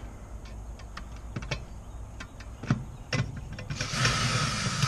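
A few light clicks and taps of handling, then near the end a cordless drill-driver motor runs for about a second and a half, backing a screw out of a metal bracket.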